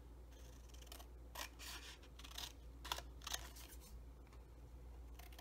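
Scissors cutting paper: a series of quiet short snips at uneven intervals as a paper cutout is trimmed down along its side.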